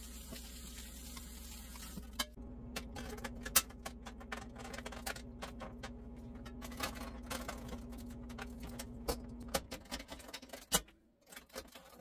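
Light metal clinks and clicks of chrome drip pans and electric coil burners being set into place on an electric stovetop, over a steady low hum.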